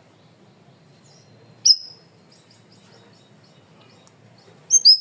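Cucak rawis (bayeman) songbird calling: a loud, sharp, high note about two seconds in, then a string of faint short whistled notes, and two loud sharp notes in quick succession near the end.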